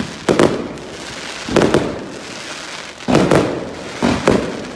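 Fireworks going off overhead: about six sharp bangs, irregularly spaced, two of them close together about three seconds in, each with a ringing tail.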